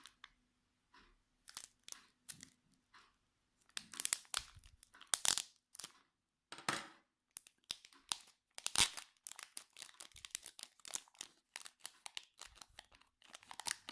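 Foil Yu-Gi-Oh! booster pack wrapper being torn open and crinkled in the hands: a run of short, irregular rips and crackles.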